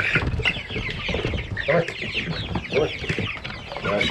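A flock of chickens clucking, many short overlapping calls.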